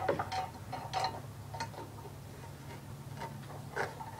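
Scattered light metallic clinks and ticks, a few seconds apart and loudest near the start, from hand tools and hardware being handled on the pull-start pulley bolted atop a Briggs & Stratton opposed-twin engine while the bolts are adjusted. A faint steady low hum runs underneath.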